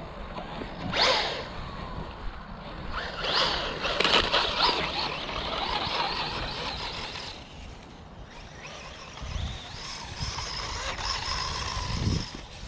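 Small electric RC car driving over gravel and dry leaves: motor whine and tyre noise coming in stretches as it speeds up and slows, with a brief whoosh about a second in.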